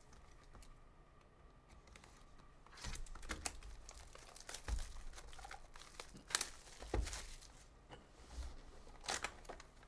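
Trading card pack wrappers crinkling and tearing open, with handling of the cards, in a run of crackles and rustles that starts about three seconds in.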